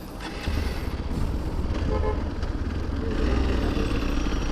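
Hero XPulse motorcycle riding on the road, a steady low rumble of engine and wind. A vehicle horn toots briefly about two seconds in.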